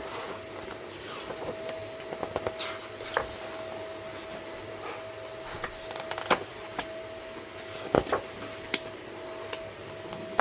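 Album packaging and merchandise being handled: scattered clicks, taps and light rustles, with a sharper double knock about eight seconds in, over a steady background hum.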